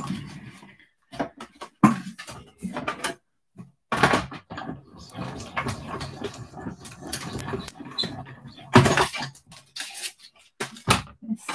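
Cardstock and craft supplies being handled on a desk: paper rustling with a scatter of clicks, taps and knocks.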